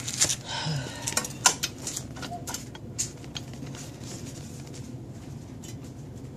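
Scattered light metallic clinks and knocks of hand work at a car's front wheel hub and steering knuckle over the first three seconds, then only a steady low hum.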